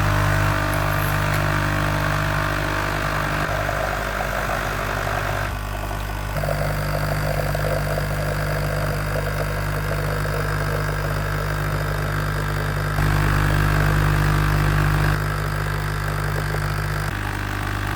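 Nescafé Dolce Gusto capsule machine's pump buzzing steadily as it forces water through a milk capsule, with hissing and sputtering that changes a few times along the way.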